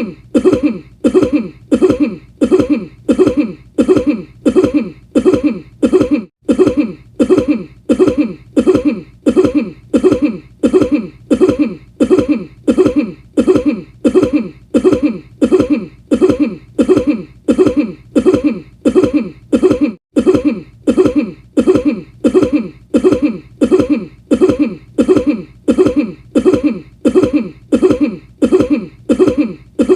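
One short cough repeated as an identical loop, about three coughs every two seconds, with two split-second breaks in the repetition.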